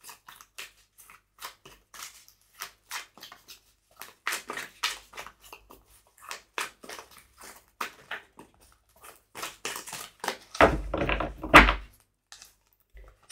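A deck of oracle cards being shuffled by hand: a steady run of soft, quick clicks and slaps as the cards slide over one another, with a louder flurry of slaps and thumps about eleven seconds in.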